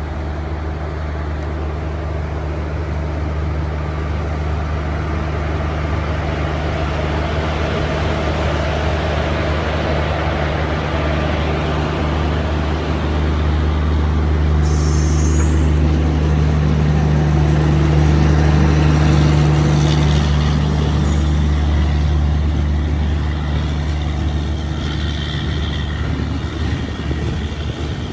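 WAP-4 electric locomotive and its express passenger coaches passing at speed: a steady low drone with rolling wheel-on-rail rumble that grows louder, is loudest about two-thirds of the way through as the coaches go by, then eases as the train moves away.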